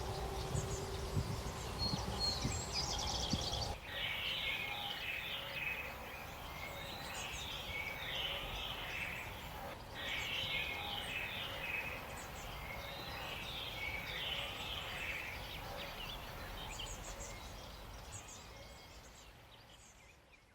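Birds chirping in quick, repeated phrases over a steady hiss, after a few seconds of low rumble; the sound fades out near the end.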